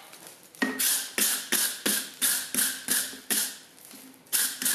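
Hand hammer striking a hot steel bar on an anvil to straighten it after a hole has been drifted through it: about nine even blows, roughly three a second, each with a short anvil ring, then a pause and two more blows near the end.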